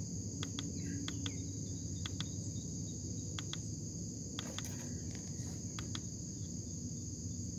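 Steady high-pitched insect chorus of summer crickets or cicadas buzzing without a break, over a low steady hum, with a few short light clicks scattered through.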